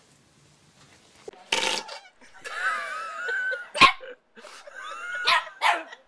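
A dog barking and whining: after a quiet first second or so comes a short noisy outburst, then wavering high whines and sharp barks.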